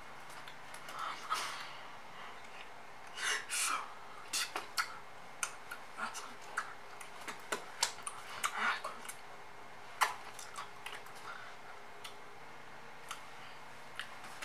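A person's voice in short, broken bursts, mixed with scattered small clicks and taps.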